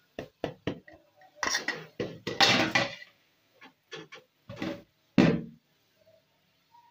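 A plastic spatula scraping and knocking against a stainless-steel mesh strainer and bowl as lemon pulp is pressed through. It comes as a run of short knocks and scrapes, with a longer scrape about a second and a half in and a heavier knock past the middle.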